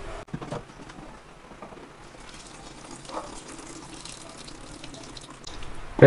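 Warm water being poured into a plastic spray bottle in a stainless steel sink: a steady trickle of running water with a few light knocks.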